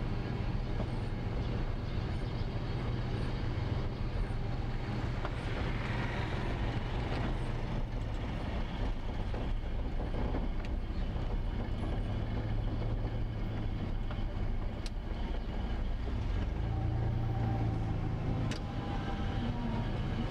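Car engine and tyre noise while driving slowly in town traffic: a steady low rumble. Two sharp clicks come near the end.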